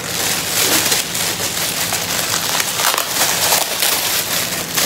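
Clear plastic packaging crinkling as it is handled, a loud, continuous crackle.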